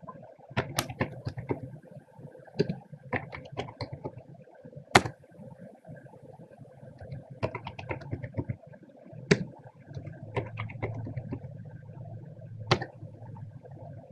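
Computer keyboard typing in short runs of keystrokes, with a few louder single clicks spread through, over a steady low hum.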